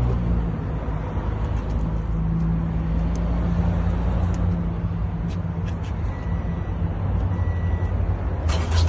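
2014 Toyota Camry's engine idling steadily with an even low hum, just started with a newly programmed push-to-start key fob.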